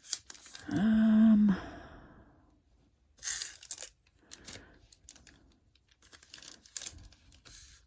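Foil wrappers of trading-card hobby packs crinkling and rustling in bursts as the packs are handled and shuffled. A person gives a brief hum about a second in, the loudest sound here.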